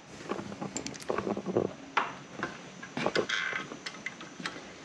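Hand tools tightening the throttle body bolts: irregular metallic clicks and knocks, with a short dense run of clicking a little over three seconds in.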